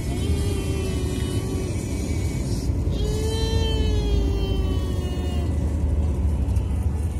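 Steady road and engine rumble of a car driving at highway speed, heard from inside the car. Music plays over it, with two long held melodic notes: one shortly after the start and a longer one from about three seconds in.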